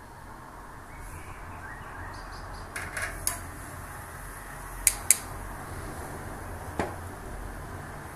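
A few sharp metallic clicks, the loudest a quick pair about five seconds in, from stainless-steel tongs tapping against the wire rack of an indoor electric grill, over a steady low background noise.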